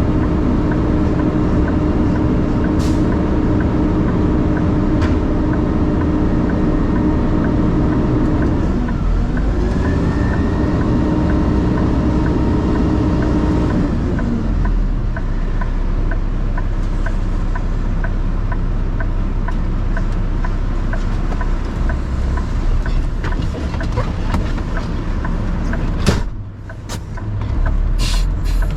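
Garbage truck engine running steadily, its pitch shifting about ten seconds in and settling lower a few seconds later. A light regular ticking runs through it, and a sharp knock comes near the end.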